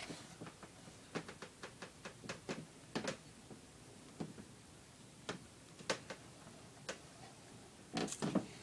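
Scattered light clicks and taps at an uneven pace, with a louder cluster of them near the end.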